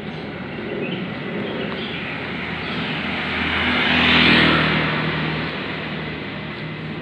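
A motor vehicle drives past close by, its engine hum and road noise swelling to a peak a little past the middle and then fading away.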